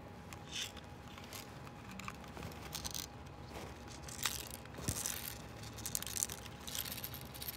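Handling noise from a hand-held plastic model with small metal BBs inside being tilted and turned: irregular rustling and light rattling, coming and going in short bursts.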